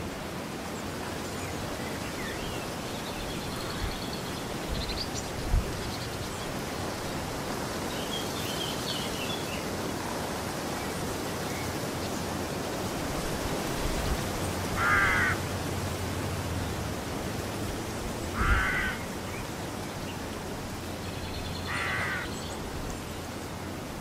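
A crow cawing three times, each caw about half a second and a few seconds apart, over a steady rushing background. Small birds chirp faintly in the first half, and there is a sharp low thump about five seconds in.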